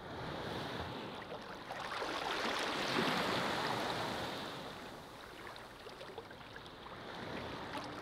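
Ocean waves washing onto a beach: a wave swells in to its peak about three seconds in and ebbs away, and another builds near the end.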